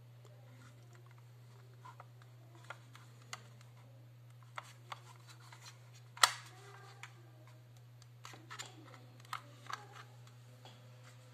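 Scattered plastic clicks and knocks from a handheld portable thermal printer as its paper cover and battery pack are handled, with one sharp snap about six seconds in the loudest. A steady low hum runs underneath.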